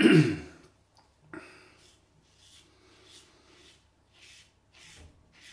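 Parker 99R double-edge safety razor with an Astra SP Green blade scraping through lather and beard stubble on the neck in short strokes, about two a second, each a brief rasp. A short vocal sound right at the start is the loudest moment.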